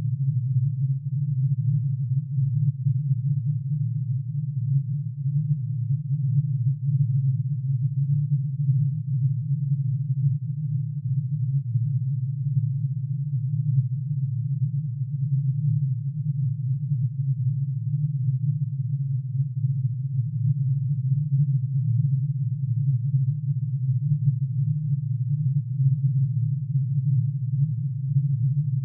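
Synthesized tone made of many summed sine waves, one for each line in plutonium's atomic emission spectrum, pitch-shifted into the audible range. It is a steady, low, dense hum that does not change.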